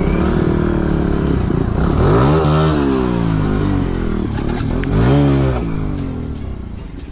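Motorcycle engines accelerating hard as a modified Bajaj Pulsar 160 pulls away for a wheelie and the filming bike follows. The engines rev up sharply about two seconds in and again about five seconds in, then ease off.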